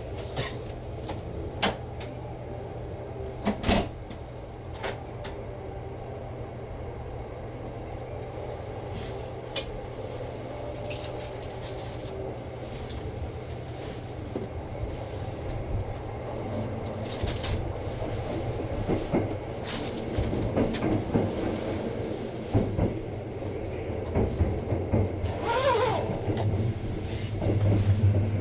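Inside a 285 series Sunrise Express sleeper train pulling out: a steady low running hum with scattered knocks and clicks from the car body and wheels. The clatter grows busier in the last third as the train gathers speed.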